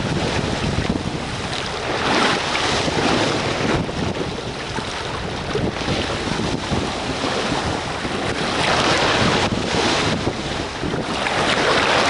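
Wind buffeting the microphone over water rushing and splashing along the hull of a small sailboat heeled hard in a gust, its lee rail in the water. The noise swells and eases every few seconds.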